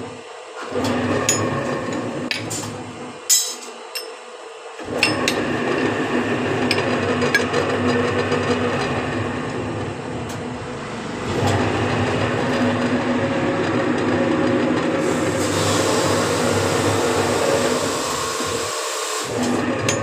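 Motorized scroll-bending machine running with a steady hum as it curls a flat steel bar into a scroll, with metallic clicks and knocks in the first few seconds. The run gets louder about halfway through, and a high scraping hiss joins in for the last few seconds before the machine briefly stops near the end.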